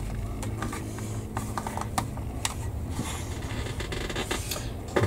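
Scattered light clicks and taps of plastic model-kit hull parts being handled and pressed together on a workbench, over a steady low hum.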